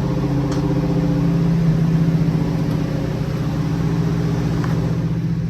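Cammed small-block Chevy 305 V8 idling steadily after about five minutes of warm-up, with a rhythmic cam lope.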